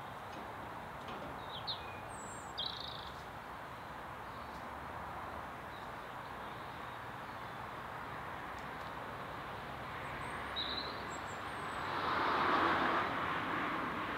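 Birds chirping a few short, high calls over a steady outdoor background hum, with a rush of noise that swells and fades near the end.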